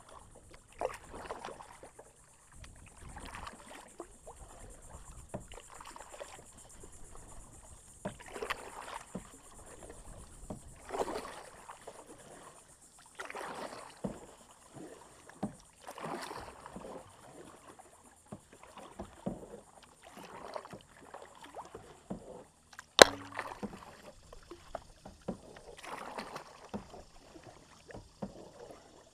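Double-bladed kayak paddles dipping and splashing in the water in a steady stroke rhythm, a splash every second or two. About two-thirds of the way through there is one sharp knock, the loudest sound.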